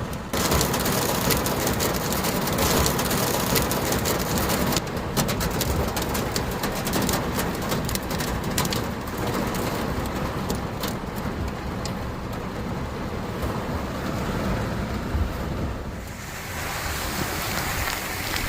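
Heavy rain with hail: a steady downpour with many sharp ticks of hailstones striking hard surfaces. The ticks thin out about two-thirds of the way through, and near the end the sound turns into a smoother rush.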